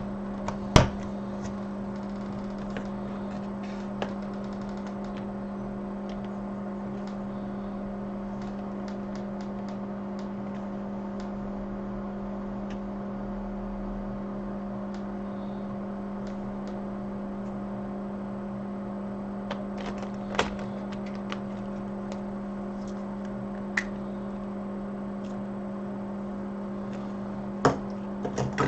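Steady electrical hum from workbench equipment, with a strong low tone and fainter tones above it, broken by a few small sharp clicks and taps, the clearest just under a second in, about 20 seconds in and near the end.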